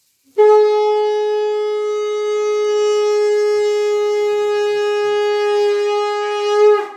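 Conch shell (shankha) blown in one long, steady note of about six seconds that starts abruptly, swells briefly near the end and then cuts off.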